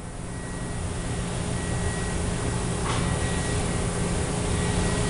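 Okuma MB-5000H horizontal machining center running: a steady hiss that grows slightly louder over a low, even machine hum, with a brief tick about three seconds in.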